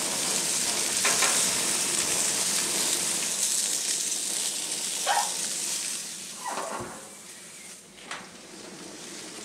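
Pork neck steaks sizzling on a hot gas-grill grate: a steady, hissing sizzle with a few brief knocks. The sizzle drops to a quieter hiss about seven seconds in.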